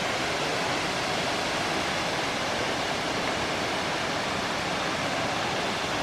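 Waterfall on Bear Run: a steady, even rush of falling water with no breaks.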